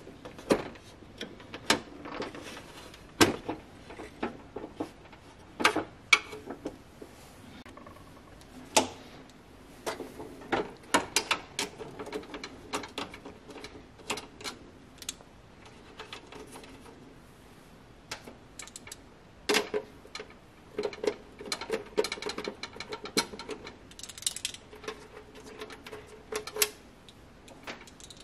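Irregular metallic clicks, taps and knocks of small parts being handled and worked on, with a short steady hum near the end.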